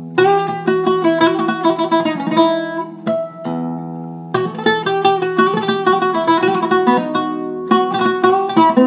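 Zeryab Turkish-style oud, cedar top and African mahogany back, played solo in fast runs of plucked single notes. About three seconds in the run breaks off and a few notes are left ringing before the quick playing resumes.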